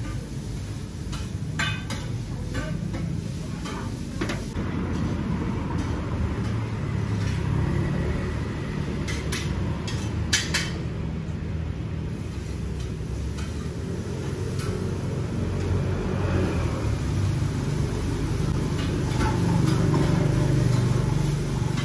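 Steady low rumble of street traffic that swells near the end, with scattered sharp clicks of a metal fork against a ceramic plate, a cluster of them about ten seconds in.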